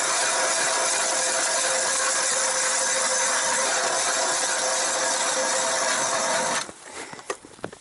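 Hand ice auger drilling into river ice, its blades cutting and grinding steadily until it stops suddenly about six and a half seconds in. A few scattered clicks and crunches follow.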